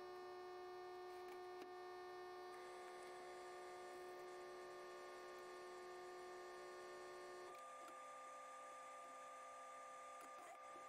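Near silence with a faint, steady electrical hum made of several steady tones, whose mix of tones changes about two and a half seconds in and again near seven and a half seconds.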